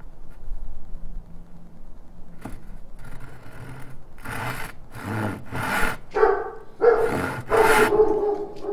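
A dog barking repeatedly, starting about two and a half seconds in, with about six loud barks in quick succession.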